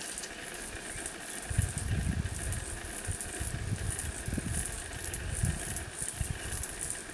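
Outdoor ambience at a honey bee hive entrance: gusts of wind buffeting the microphone over a faint steady hum. A faint high pulsing sound repeats evenly throughout.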